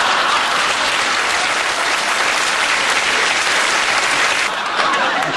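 Studio audience applauding, a dense, steady burst of clapping that thins out near the end.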